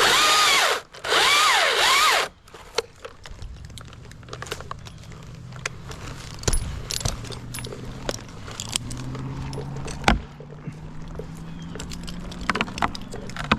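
A chainsaw revving hard in two short bursts, its pitch rising and falling, then cutting off about two seconds in. Scattered knocks and clatter follow over a low steady engine hum.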